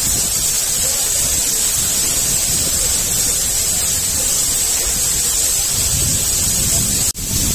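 Wind buffeting the microphone: a loud, steady rushing noise with a heavy low rumble. It drops out for an instant near the end.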